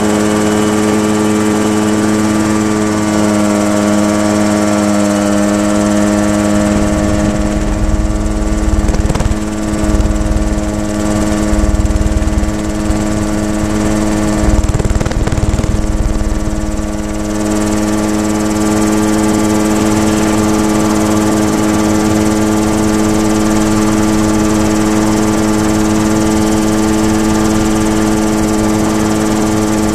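Mosquito ultralight helicopter's engine running hard at full climb power, heard from on board as a steady drone that holds its pitch. From about 7 to 17 seconds in, a low rumble joins it.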